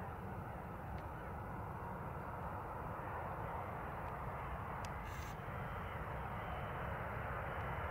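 Distant rumble of a Boeing 747's jet engines, a steady noise that grows slightly louder near the end.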